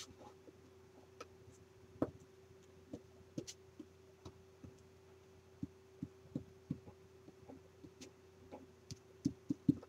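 Glue stick dabbing and rubbing on a paper cutout over a wooden board: soft, irregular taps and light knocks, several in quick succession near the end, over a faint steady hum.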